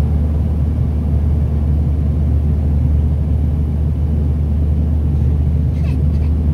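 Cabin noise inside a Dash 8-300 turboprop airliner on final approach: a steady low drone from its two turboprop engines and propellers, with airflow noise, holding even with no change in power.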